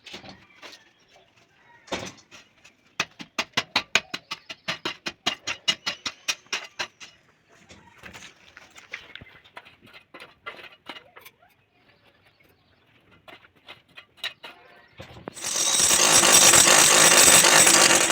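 Construction-site tool work: rapid, even knocking, about five strokes a second, then scattered knocks, followed near the end by about three seconds of loud machine noise.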